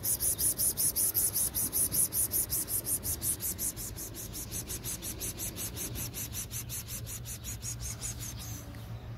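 Street ambience: a fast, high-pitched pulsing, about five pulses a second, that fades gradually, over a low steady rumble.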